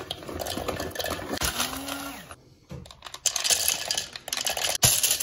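Shelled nuts poured into a plastic blender cup, clattering against the plastic. Walnuts go in for about two seconds, then after a short pause pistachios rattle in, with one sharp knock near the end.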